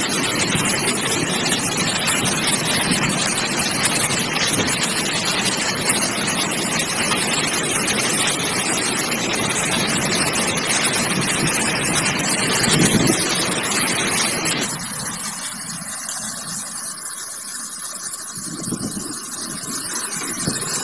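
Heavy rain and strong storm wind, a steady rushing noise with wind buffeting the microphone. About fifteen seconds in it turns quieter and thinner.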